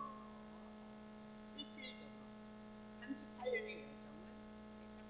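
Steady electrical hum with faint room tone, and two brief, faint snatches of a voice, about a second and a half and about three and a half seconds in.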